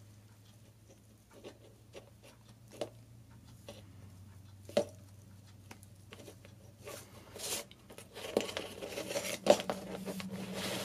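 Plastic cable connectors being handled and plugged into the ports of a DJI N3 flight controller: a few scattered light clicks, the sharpest about five seconds in, then a stretch of cables rubbing and rustling over cardboard near the end.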